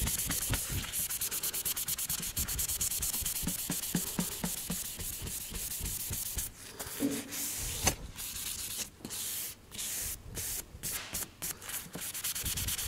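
Dry hand-scuffing of a car's painted body panel with an abrasive pad, matting the paint before a blend repaint. The rapid back-and-forth rubbing is continuous at first, then breaks into shorter strokes with brief pauses about halfway through.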